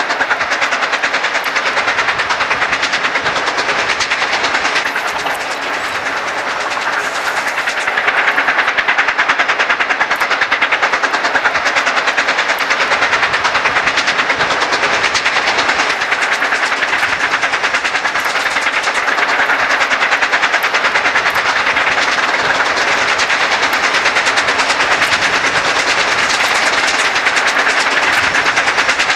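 Steam locomotives working hard upgrade, their exhaust beating in a fast, steady rhythm, slightly quieter for a few seconds about five seconds in.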